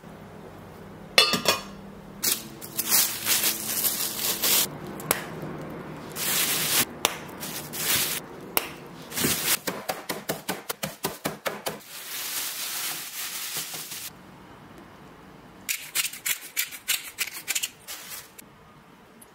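Kitchen knife chopping on a cutting board during food preparation, with scattered knocks and quick regular runs of chops, several a second, about nine seconds in and again near the end.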